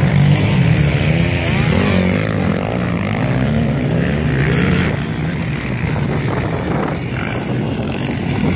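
Motocross motorcycle engines revving on a dirt track, the pitch rising and falling over and over as the throttle opens and closes through jumps and turns, then running more evenly in the second half.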